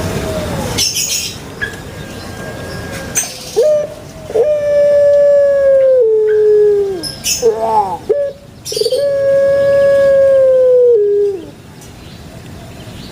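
Puter pelung dove (ringneck dove) cooing twice. Each call opens with short notes and then holds one long, steady coo that falls away at the end. A few short clicks sound between the calls.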